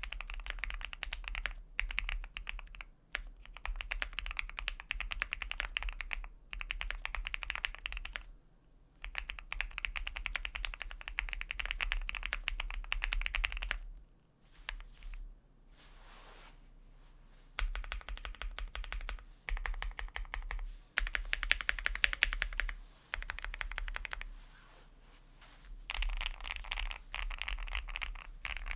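Typing on a QK75 mechanical keyboard with lubed Gateron Milky Yellow linear switches on a polycarbonate plate and GMK keycaps: dense runs of key clacks broken by short pauses, with a stretch of slower, sparser keystrokes midway.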